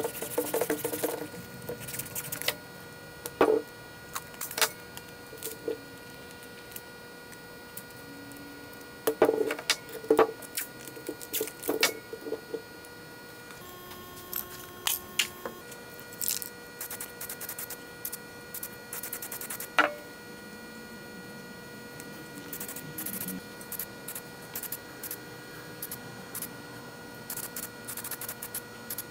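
Scattered clicks and knocks of metal screw-jack parts being handled and set down, over a steady electrical hum.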